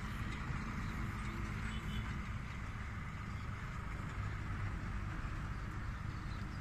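Distant truck engines: a steady low rumble with no sharp sounds.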